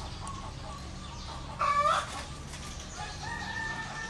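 Chicken calling in the background: one loud, short cry about halfway through, then a faint, long held tone near the end, over a steady low hum.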